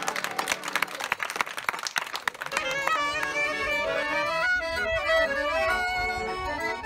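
Live Greek folk dance tune on accordion and clarinet. For the first two seconds or so quick hand clapping runs over the accordion, then a clarinet melody with sliding notes takes the lead.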